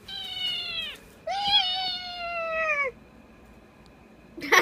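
Domestic cat giving two long, drawn-out meows, each sliding down in pitch. Right at the end, a burst of a person's laughter starts.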